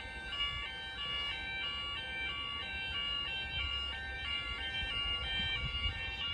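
Level crossing's electronic audible warning alarm sounding as the crossing closes for a train: a steady two-tone alarm switching back and forth between a higher and a lower note in a regular repeating pattern, over a low rumble.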